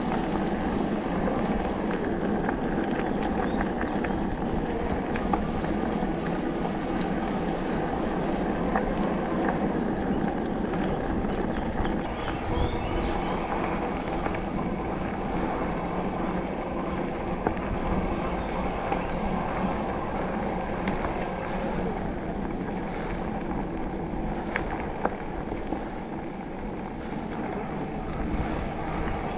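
Electric mountain bike rolling along a dirt forest track: steady tyre and riding noise with rattle, and a few sharp clicks here and there.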